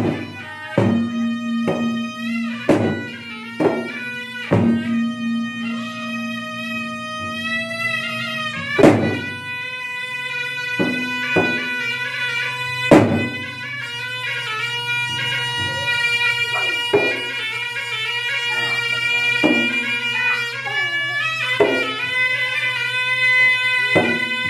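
Traditional gendang ensemble: two double-headed barrel drums struck by hand in sharp, irregular strokes, under a loud, reedy shawm holding a continuous wailing melody. Two drum strokes, about 9 and 13 seconds in, stand out as the loudest.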